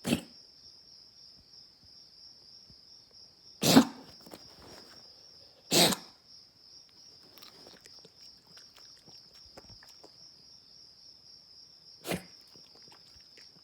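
Dog coughing in four short, separate bursts spread over several seconds, the second and third the loudest. Crickets trill steadily underneath.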